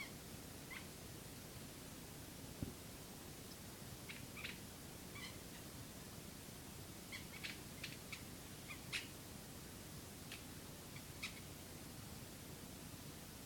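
Faint, short, high squeaks from a squeaky cross-shaped pet toy being played with, about a dozen scattered squeaks, most of them bunched together past the middle. One dull thump a few seconds in.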